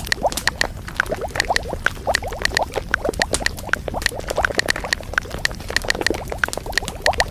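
Water bubbling: a dense, irregular run of small pops and short rising blips that goes on without a break.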